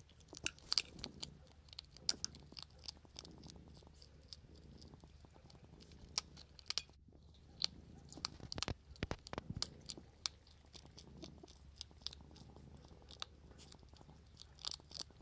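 Hedgehog chewing dry cat food kibble, with many irregular sharp crunches and clicks.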